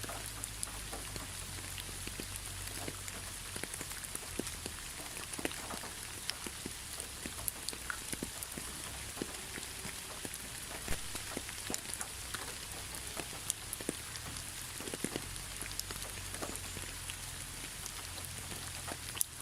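Steady rain: an even hiss with many sharp, scattered clicks of single drops hitting close by.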